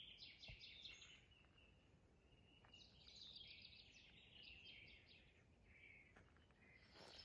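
Faint songbird song among pine trees: quick, high chirping phrases, one at the start, a longer run about three seconds in and a short one near the end.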